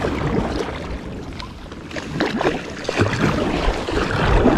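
Kayak paddle strokes dipping and splashing in river water, the splashes growing louder about two seconds in.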